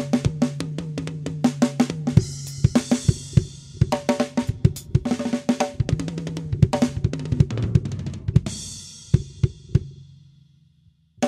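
pdp acoustic drum kit played solo: quick runs of kick drum, snare and tom strokes with hi-hat and cymbals. About eight and a half seconds in a cymbal crash rings out and fades, followed by a few sparse hits and a short pause before one more stroke at the very end.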